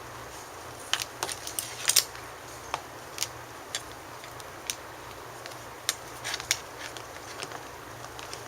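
Irregular small clicks and ticks of metal tools and a Deans connector being handled during soldering work on battery wires, over a steady low hum.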